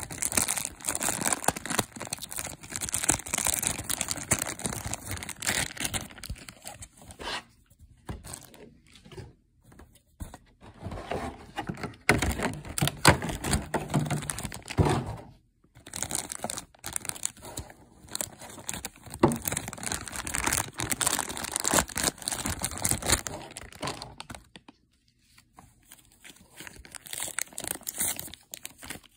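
Clear plastic figure packaging crinkling and rustling as it is handled and pulled away from the figure, in bursts with a few short pauses.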